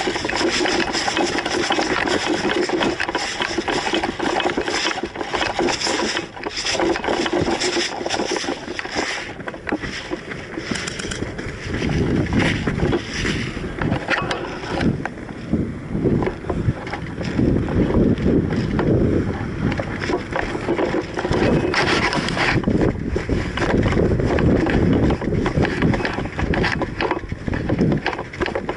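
Continuous rustling and scraping of a player's gear and clothing rubbing as they move, with heavier low rumbling in the second half.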